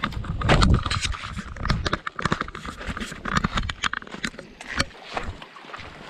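Footsteps on loose rocks, stones knocking and clacking underfoot in an irregular run of sharp clicks. The heaviest, lowest thump comes just under a second in.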